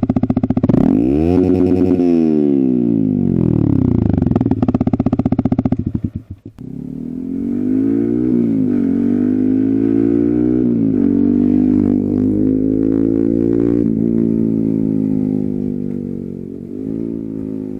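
A Yamaha XSR 155's single-cylinder engine breathes through an SC Project 270mm aftermarket exhaust. It revs up hard and drops back once, then after a break runs steadily with a few quick throttle blips, fading near the end.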